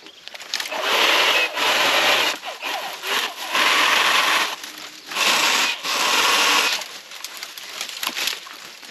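A hand saw cutting through a branch in rasping strokes: about five strokes, each up to a second and a half long, with short pauses between them.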